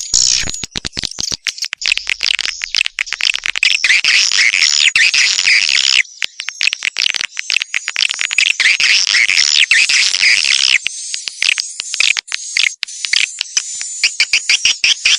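Swiftlet call track: dense, high-pitched twittering and chirping of swiftlets mixed with sharp clicks, the clicks running quick and even over the last few seconds. It is a lure call played at swiftlet houses to draw wild swiftlets in to nest.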